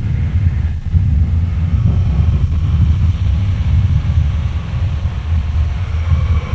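Muddy, bass-heavy lo-fi demo-tape recording from a 1990s raw black metal demo: a dense, continuous low rumble with faint sustained higher tones above it.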